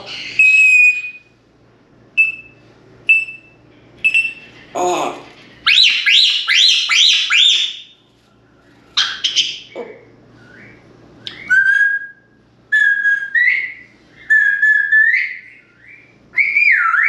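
African grey parrot whistling: four short single-note whistles, then a quick run of rising swoops, then longer whistles that slide up and down in pitch. About five seconds in it says a short spoken "Oh" in a human-like voice.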